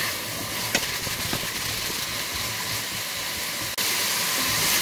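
Vegetables and white wine sizzling and hissing in a hot steel pot as the alcohol boils off, with a few light knocks of a wooden spatula against the pot in the first second or so.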